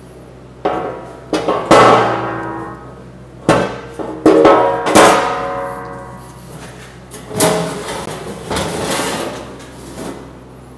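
Welded sheet-steel slag pan clanging and scraping against the steel table frame as it is handled and slid into place beneath the table, the sheet ringing after each knock. There are several clangs, the loudest in the first half.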